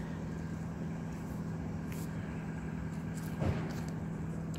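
Car engine idling with a steady hum, and a brief short sliding sound about three and a half seconds in.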